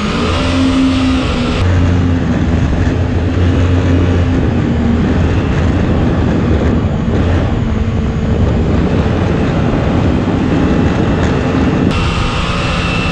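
Jetstream mini jet boat under way, its 1053cc Yamaha four-stroke engine running steadily and driving the jet, mixed with the loud rush and spray of water against the hull.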